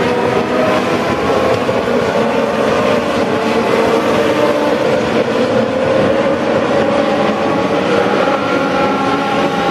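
A pack of Legends race cars' Yamaha four-cylinder motorcycle engines running together around the dirt oval, a loud, steady overlapping drone.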